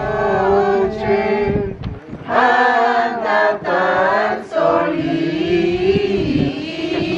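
A group of people singing a traditional Mexican posada song together from song sheets, with long held notes and short breaks between phrases.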